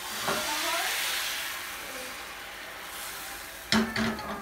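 Crepe batter sizzling as it is ladled into a hot nonstick frying pan: the hiss swells in the first second, then slowly dies down. Near the end come a few sharp metal clanks of cookware.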